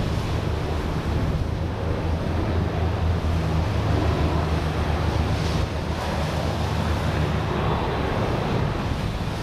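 Strong wind buffeting the microphone over sea surf, with a steady low droning hum underneath.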